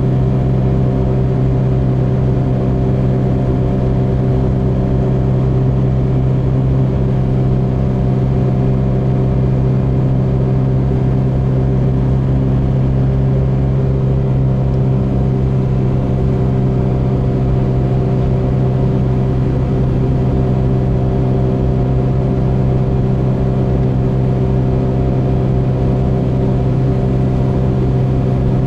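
Car cruising at a steady speed on an expressway, heard from inside the cabin: a constant low engine and road drone that does not change.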